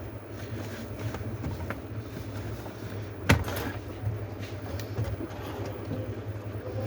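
Laptop parts being handled as a display is fitted to a Dell Latitude E6400 motherboard: one sharp knock about three seconds in and a few lighter clicks, over a steady low hum.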